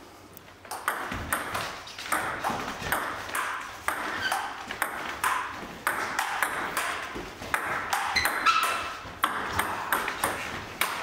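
Table tennis rally: the ball clicking off the paddles and the table in quick, regular strokes, about two a second.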